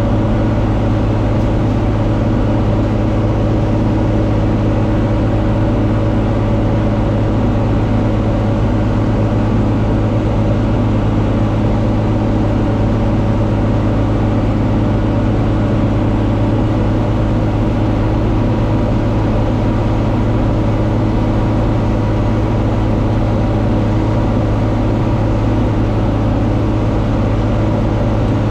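John Deere 4250's six-cylinder diesel engine running steadily under load, pulling and driving a round baler, with an even, unchanging hum.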